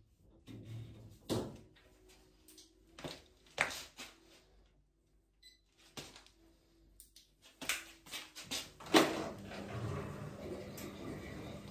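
Scattered knocks and clicks from handling the washing machine. About nine seconds in, a steady rush of water with a low hum begins: the machine filling through its inlet.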